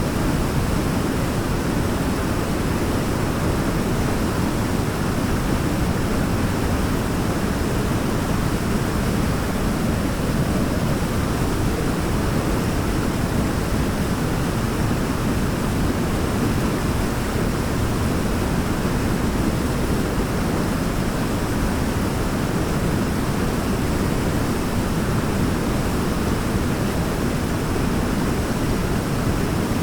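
Waterfall: water falling and rushing in a steady, deep, unbroken wash with no separate splashes or changes.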